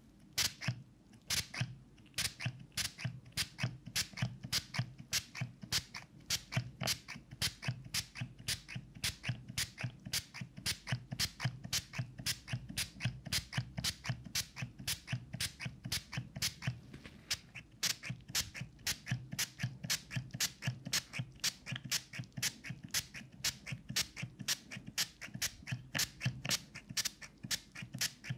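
Plastic pump spray bottle spritzing at a binaural dummy-ear microphone: short hissing sprays in quick succession, about three a second.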